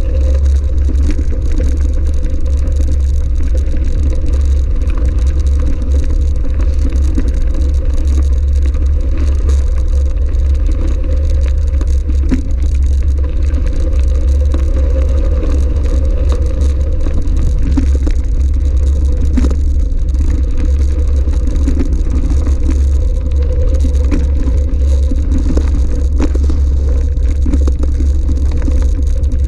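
Electric mountain bike ridden along a gravel track, heard from a camera on the bike or rider: a steady, loud low rumble of wind and vibration, with the tyres crunching and rattling over the gravel.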